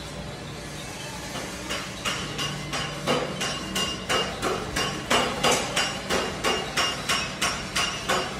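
Metal being struck with a hammer at a steady pace, about two ringing blows a second, starting about two seconds in, over a low steady machine hum.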